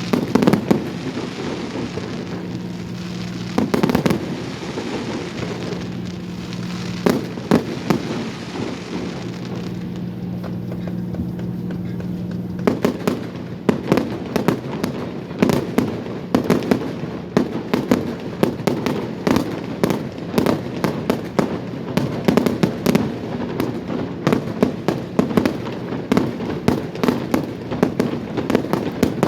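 Fireworks display: a few separate bangs over a steady low hum at first, then, from a little under halfway through, a rapid barrage of many bangs and crackles a second as the hum stops.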